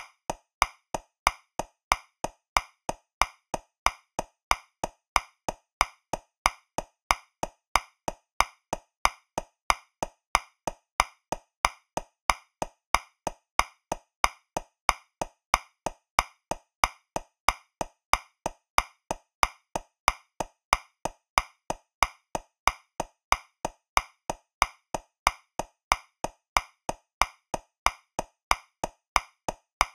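Metronome clicking steadily at 185 beats per minute, about three clicks a second, in 2/4. Every other click is accented and louder, marking the first beat of each bar.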